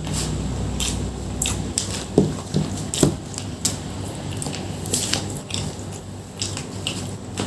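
Close-up eating sounds of a person chewing mouthfuls of nasi padang: wet chewing and mouth smacks with short sharp clicks scattered throughout, the loudest about two and three seconds in.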